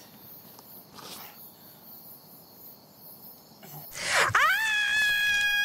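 A woman screams in pain as her open cut is treated. The scream starts suddenly about four seconds in and is held as one long, loud, high cry.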